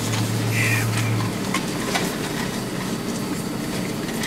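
Car idling, a steady rumble inside the cabin, with a low steady hum in the first second or so and a few light clicks.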